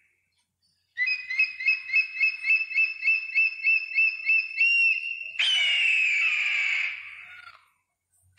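Bald eagle calling: a rapid series of high piping notes at about four a second for some four seconds, then a harsh, falling scream that fades out.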